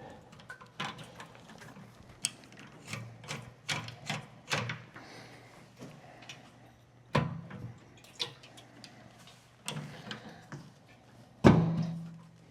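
Irregular clicks, taps and knocks of a motorcycle's fuel tank and its fasteners being handled and worked into line, with one louder clunk near the end.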